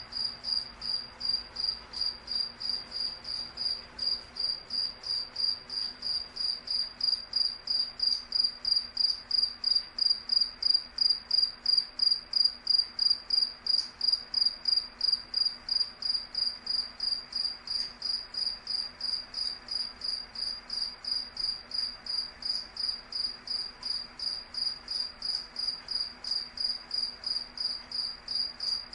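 A cricket chirping, a steady high-pitched chirp repeated evenly about three times a second.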